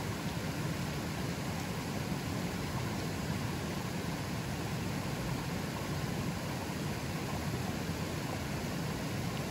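A river flowing fairly strongly: a steady, even rushing of water, fullest in the low range.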